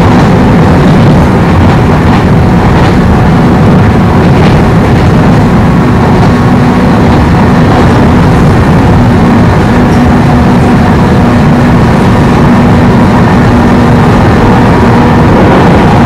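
JR West 103 series electric commuter train running at speed, heard from inside the carriage: a loud, steady rumble of wheels and running gear with a held low hum and a few faint clicks.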